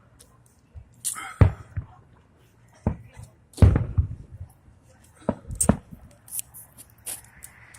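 Fireworks going off: a string of about ten sharp booms, the loudest about three and a half seconds in with a short rumble after it, and a few thinner, higher snaps in between.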